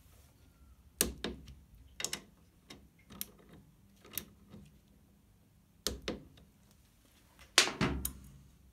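A torque wrench on the front brake caliper bolts of a BMW superbike gives a scattered run of short, sharp metallic clicks and knocks as the bolts are tightened. The loudest knock comes near the end.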